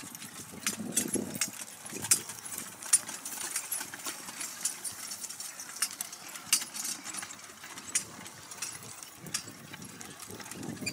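A pair of horses trotting in harness, pulling a four-wheeled carriage over grass: irregular clicks and rattles from the hooves, harness chains and carriage, over a low rumble.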